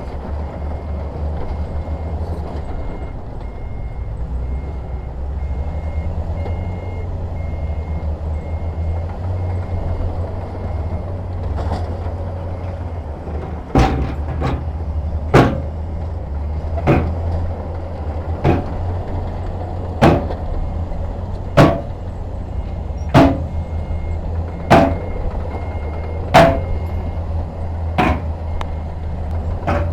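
Heavy diesel dump truck engine running steadily, with a reversing alarm beeping for about the first ten seconds. From about halfway, sharp metallic bangs repeat evenly about every second and a half.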